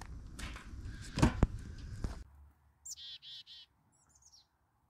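A stick knocks and scrapes in a steel burn barrel over a low rumble, with two sharp knocks about a second in. After a sudden cut, a small bird calls three quick buzzy notes, then a few fainter, higher chirps.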